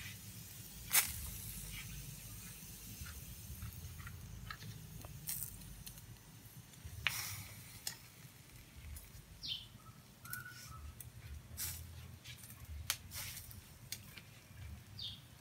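Pork grilling over charcoal: a steady sizzle broken by many sharp pops and crackles of spitting fat, the loudest about a second in. Two short high chirps sound about halfway through and near the end.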